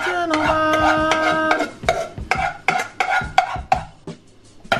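Utensil stirring and clattering in a pot, with a song playing over it; a sung note is held for the first second and a half, then short sharp knocks and scrapes follow.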